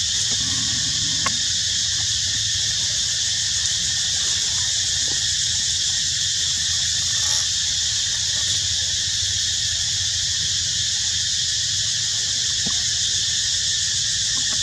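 Steady, high-pitched drone of an insect chorus, unchanging throughout, with a low rumble underneath and a few faint clicks.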